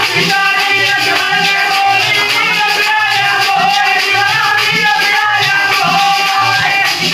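Dehati thali Ramayan folk music: a dholak keeps a steady beat of low thumps, under the jingling of a metal-jingled stick and a long, wavering sung melody.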